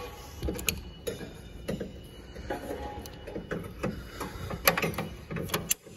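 Locking pliers and other hand tools clicking and clinking against metal parts, a string of irregular sharp clicks.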